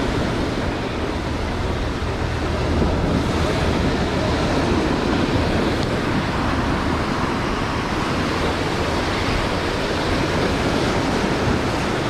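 Surf washing onto the shore, mixed with wind buffeting the microphone: a steady rush of noise.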